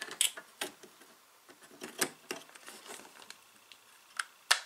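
Light clicks and knocks of a circuit board with a plastic snap-on cover being handled and picked up, a scatter of short taps with one sharper click near the end.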